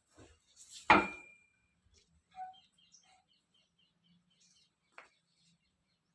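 A sharp clink about a second in, with a short high ringing tone after it, then a smaller click near the end; faint, quick, evenly spaced bird chirps run through the second half.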